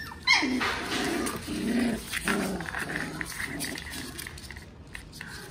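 Puppies play-fighting: a quick high yip falling in pitch just after the start, then a run of short low growls that fade out after about three seconds.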